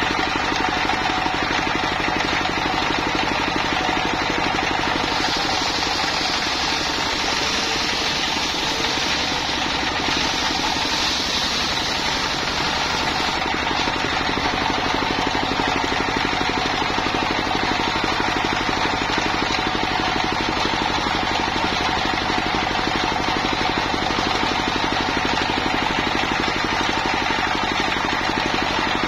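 Single-cylinder diesel engine running steadily with a rapid knocking beat, driving a circular saw that rips a log lengthwise. The blade's cutting hiss is stronger for several seconds in the first half.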